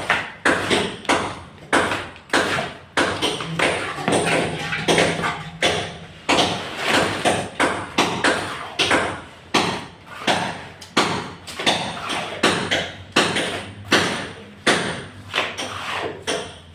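Hammer striking repeatedly at about two blows a second, each blow sharp and ringing briefly.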